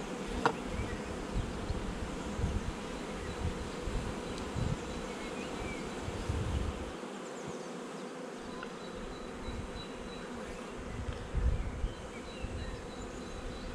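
Many honeybees buzzing steadily around an opened hive and swarm, with occasional low bumps and a sharp knock about half a second in.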